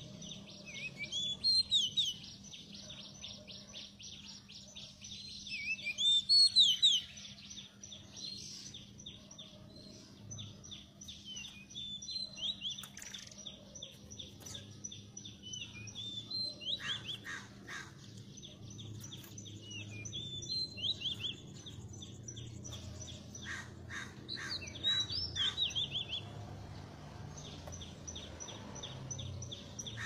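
Oriental magpie-robins calling: short whistled, sliding notes over a fast, harsh chatter, loudest in bursts about two seconds and six to seven seconds in.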